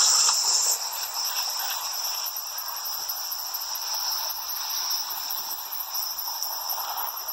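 Crickets chirping steadily, a high-pitched trill with a fast even pulse, a little louder in the first second.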